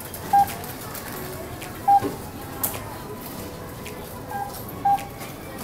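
Supermarket checkout barcode scanner beeping as items are scanned: four short, single beeps of the same pitch a second or more apart, one of them fainter, over light clatter at the counter.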